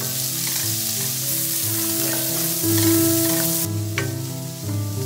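Chopped onion sizzling as it fries in hot oil in a steel pan, stirred with a wooden spatula; the loud sizzle drops away sharply a little over halfway through. Soft background music with held notes plays underneath.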